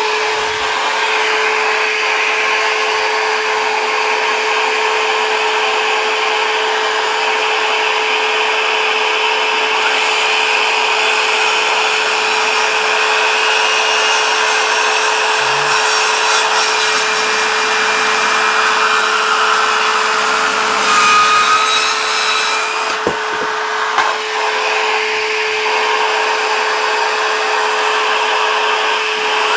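Evolution 18V cordless vacuum running steadily as dust extraction while the Evolution R165 165 mm cordless circular saw makes test cuts through wood, with a couple of sharp clicks past the middle.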